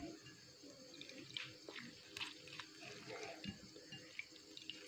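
Faint, scattered little splashes and drips of hands squeezing a handful of gotu kola leaves in water, pressing out their green juice.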